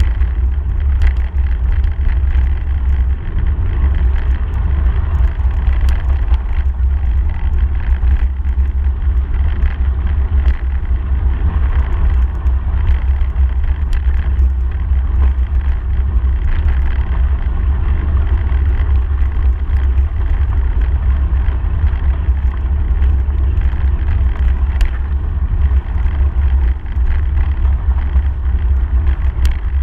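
Steady low rumble of wind buffeting a handlebar-mounted camera's microphone, mixed with bicycle tyres rolling over a dirt and gravel path, with scattered small clicks and rattles.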